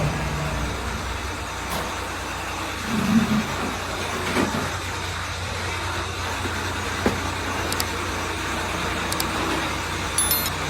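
Steady low rumble and hiss, with a few brief knocks and clicks scattered through it.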